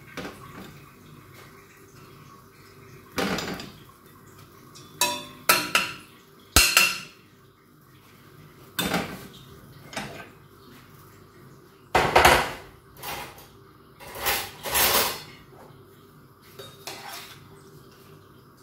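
Metal spoon scraping and knocking against a stainless steel strainer and pot in about a dozen separate short clatters, as drained parboiled rice is spooned into the pot.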